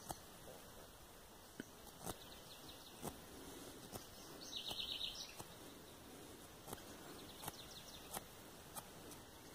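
Small, irregular clicks from a knife blade cutting and shaving the wedge on an acerola scion twig for a cleft graft, about ten strokes. A bird gives a short chirping trill about five seconds in.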